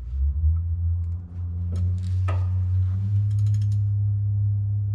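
A steady low hum from shop equipment, with a couple of sharp metallic clicks and then a quick run of ratchet clicks a little past the middle, as hand tools work on the diesel engine's crankshaft.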